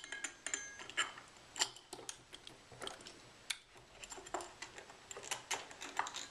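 Small metal parts of a Geneva wheel mechanism clicking and clinking under the fingers, irregular, a few a second, as the wheel is taken off its bolt and bearings.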